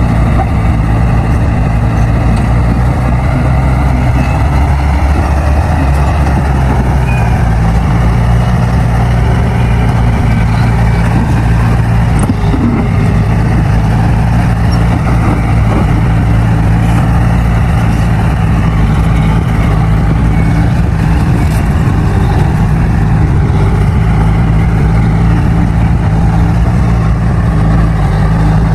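Bulldozer's diesel engine running loud and steady, a low even drone that barely changes in pitch.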